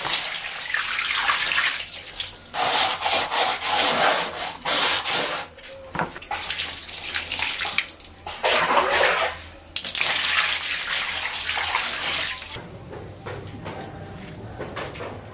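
Hands splashing water over a rubber bicycle tyre and scrubbing it on a wet tile floor, in repeated bursts of a few seconds each. The washing stops about twelve seconds in, and only a much quieter background is left.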